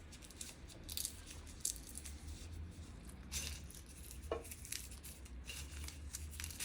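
Whole spices dry-roasting in a wok and being stirred: scattered faint crackles and scrapes, with a brief squeak about four seconds in.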